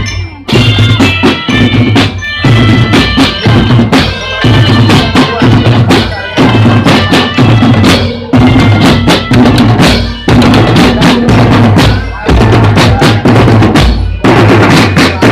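Marching drum band playing: bass and snare drums beating a steady, repeating rhythm, with a high melodic line over the drums.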